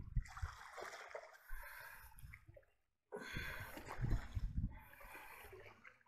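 Water splashing and lapping, with a low rumble coming in gusts. The sound drops out completely for about half a second near the middle.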